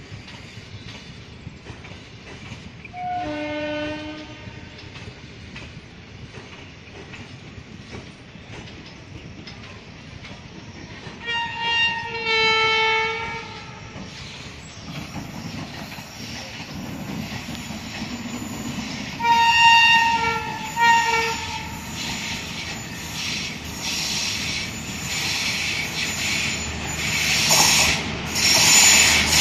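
Locomotive horn sounding three times, each louder than the last: a short blast, then a longer two-note blast, then several short toots. After it, the rumble and wheel clatter of an approaching Indian Railways WAP-5 electric locomotive and its train build up until it is passing close by.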